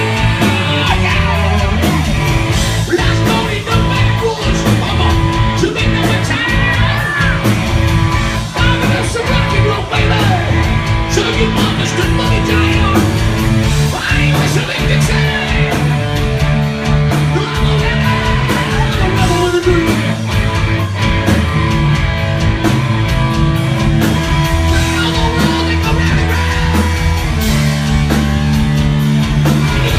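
Loud live rock band playing a boogie-blues rock song, with distorted electric guitar, bass, drums and a singer's voice.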